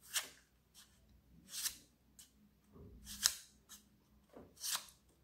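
Playing cards being slid off a hand-held pile one at a time, making four brief swishes about a second and a half apart.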